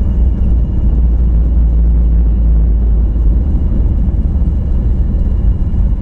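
Loud, steady low rumble inside the cabin of a Boeing 737 during the landing rollout just after touchdown: engine noise and the wheels on the runway as the jet slows down.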